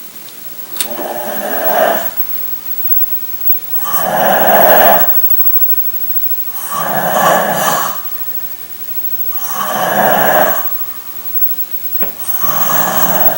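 A pet snoring loudly like a human, with five long rasping snores, one about every two and a half to three seconds.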